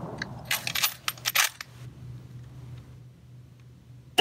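Bolt of a Mauser rifle converted to 7.62x51mm being worked between shots: a quick cluster of metallic clicks and clacks about half a second to a second and a half in, as the spent case is extracted and a fresh round is chambered. The crack of the next rifle shot begins right at the end.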